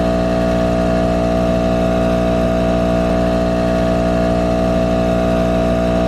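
Portable 12-volt tire inflator (Tacklife M1) running steadily as it pumps air into a flat car tire through a hose screwed onto the valve.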